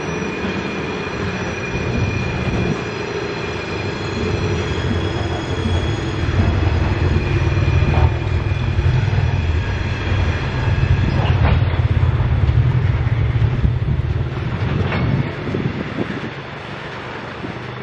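Diesel freight train rolling past: a low rumble that grows louder through the middle and eases off near the end, steady high-pitched wheel squeal, and a few sharp clicks.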